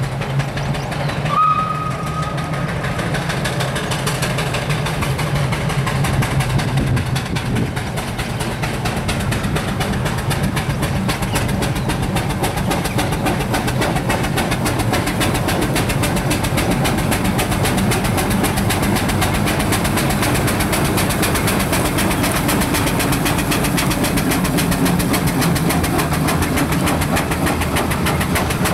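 Steam road engine working up a hill, its exhaust beating rapidly and steadily, building in loudness over the first few seconds and then holding. A short high tone sounds about a second in.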